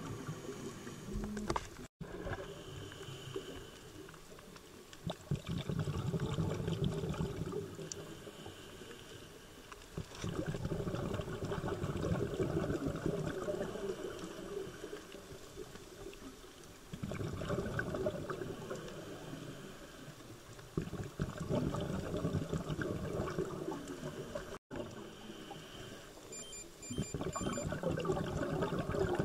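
Scuba diver breathing through a regulator underwater: long bubbling exhalations of several seconds each, alternating with quieter spells between breaths.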